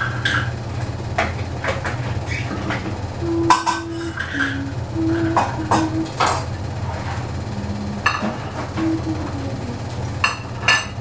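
Scattered light clicks and knocks of kitchen utensils on a stainless saucepan as hot chocolate thickens on a gas stove, over a steady low hum.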